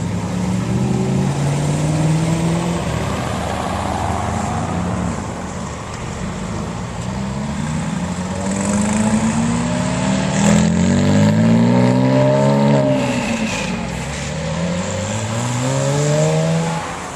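Sports car engine revving and accelerating. Its pitch climbs for several seconds, drops away about two-thirds of the way through, then climbs again near the end.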